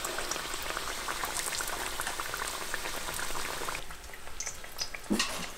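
Breaded seitan steaks frying in hot oil in a cast iron pan: a dense bubbling crackle. About four seconds in it drops much quieter, leaving a few light clicks near the end.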